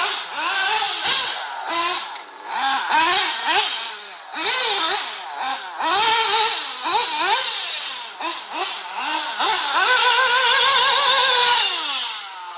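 Radio-controlled off-road cars running on a dirt track, their motors whining up and down in pitch over and over as they speed up and slow down, with a steady hiss over it. Near the end one motor holds a high whine for a couple of seconds before falling away.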